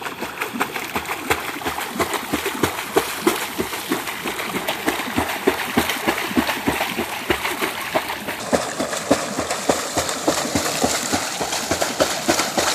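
Swimmer's flutter kick splashing at the surface of a pool: a quick, even rhythm of splashes, several kicks a second, as her feet break the water.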